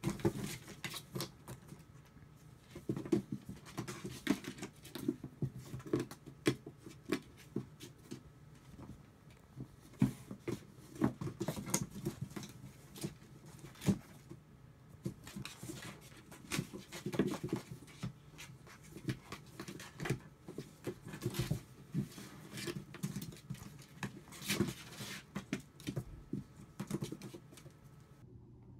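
Kittens scrambling on and in a cardboard box: an irregular patter of light thumps and scratches from their paws and claws on the cardboard.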